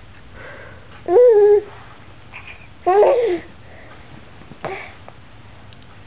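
Baby babbling: two short voiced sounds, about a second in and about three seconds in, the second rising and then falling in pitch.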